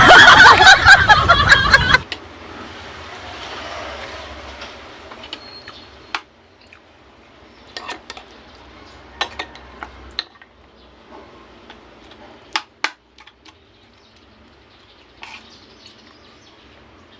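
A loud voice for about the first two seconds, then quiet eating sounds: scattered sharp clicks of utensils against a plate, a few close together.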